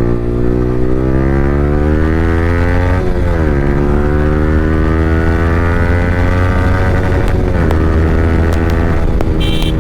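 Yamaha R15 V3's 155 cc single-cylinder engine through an Akrapovic R9 exhaust with no dB killer, accelerating under load. The note climbs, drops at an upshift about three seconds in, climbs again, drops at a second upshift before eight seconds, then holds steady.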